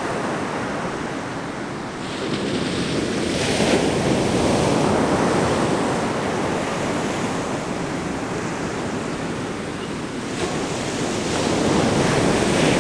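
Ocean surf breaking and washing up the beach, with wind buffeting the microphone. The wash swells louder about three seconds in and again near the end.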